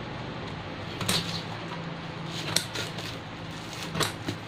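Scissors snipping through the plastic wrap and cardboard of a shipping box, with three sharp snips: about a second in, at about two and a half seconds and near the end, over a low steady hum.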